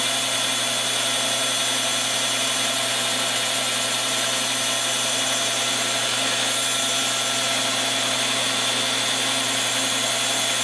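A knockoff rotary tool, rigged as a lathe tool post grinder, runs with a steady whine. Its cutoff wheel is grinding slowly into a hardened steel pin that turns in the lathe.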